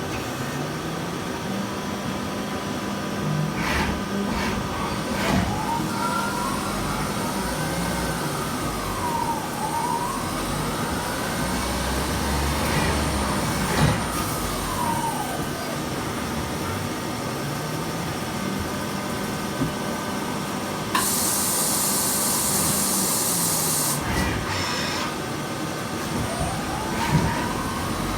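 Mazak QT100MSY CNC lathe running a turning cycle. The spindle hum ramps up to a steady pitch, drops, then spins up again. Above it the axis drives rise and fall in pitch, with a few sharp clicks and about three seconds of loud hiss near the end.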